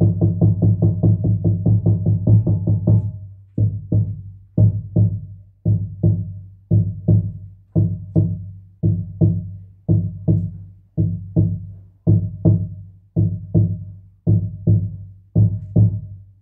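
Large hide frame drum struck with a padded beater, giving deep low booms. It beats a fast even pulse of about five strokes a second, then about three seconds in changes to a slower double beat, two strokes about once a second, like a heartbeat.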